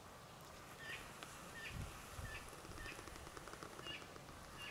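A bird calling a short, high note over and over, roughly once or twice a second, with a couple of low thumps about two seconds in.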